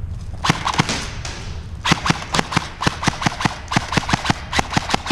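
Airsoft rifle firing: two shots about half a second in, then from about two seconds in a steady string of quick shots, roughly six a second.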